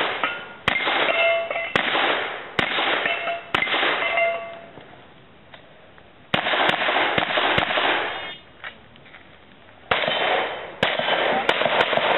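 Pistol shots fired in a USPSA stage, about a dozen in all at roughly one a second, with a pause of about two seconds near the middle. Each shot echoes away over most of a second, and several are followed by a metallic ringing.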